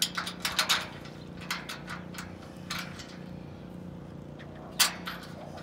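Light clicks and taps of a support clamp being handled and fitted on an aluminum dock pole: several quick ones in the first second, a few more scattered after, and one sharper click near the end, over a steady low hum.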